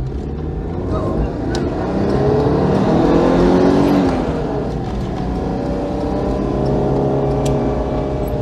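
Citroën GSA's air-cooled flat-four engine heard from inside the cabin, revving up under acceleration for about three seconds, easing off about four seconds in, then pulling steadily again.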